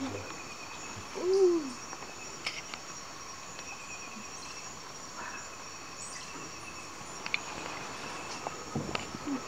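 Steady high-pitched chorus of rainforest insects, with one short hooting call about a second and a half in that rises and falls. A few faint clicks.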